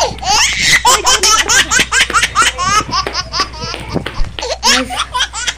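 A boy laughing in quick, repeated bursts.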